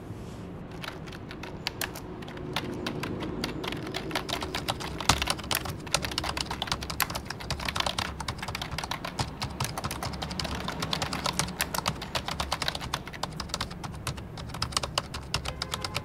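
Rapid typing on a computer keyboard: a dense, irregular run of key clicks, over a low steady background hum.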